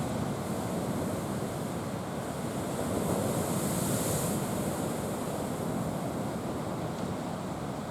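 Sea waves washing ashore on a calm sea, a steady wash with one brighter surge of hiss about three to four seconds in.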